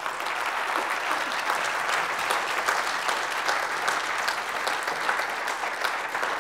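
Audience applauding, a dense steady clapping that holds at an even level.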